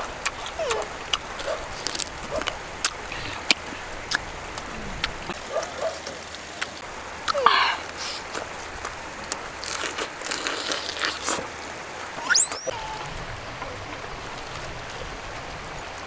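Close-up eating sounds, with many sharp lip smacks and chewing clicks and a few short voice murmurs, over the steady rush of a stream. Near the end a brief rising squeak, then the eating sounds stop and only the stream is left.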